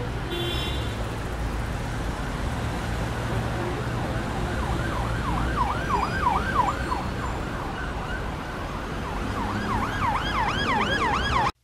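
Emergency vehicle siren in a fast up-and-down yelp, about four sweeps a second, coming in about halfway through and again near the end, over a steady low rumble of city traffic.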